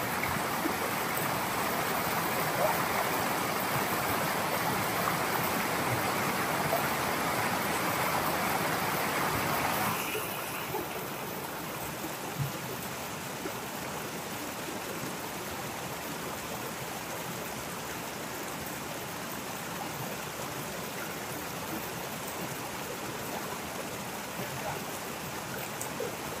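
Rushing water of a rocky forest stream and small waterfall, a steady wash of noise. About ten seconds in it drops to a softer, lower rush.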